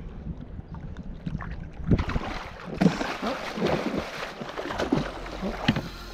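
A hooked yellowtail kingfish thrashing and splashing beside a kayak as it is drawn alongside, with sharp knocks on the hull, the loudest about two and three seconds in.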